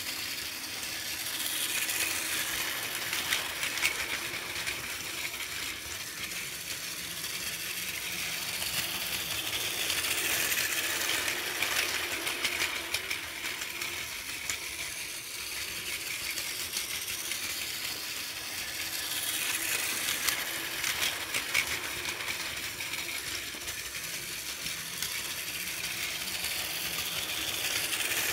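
Battery-powered Plarail toy shinkansen trains running on plastic track: a small motor whirring under a fast, fine ticking rattle of wheels on the plastic rails. The sound swells each time a train runs close by, about every eight or nine seconds.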